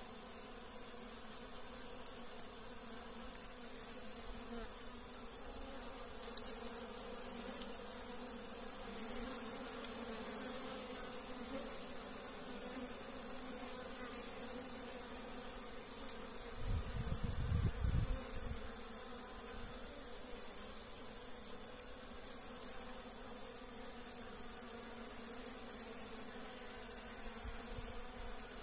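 Many Africanized honeybees buzzing steadily as they forage for pollen on a licuri palm's flower clusters. A brief low rumble on the microphone comes in after about sixteen seconds.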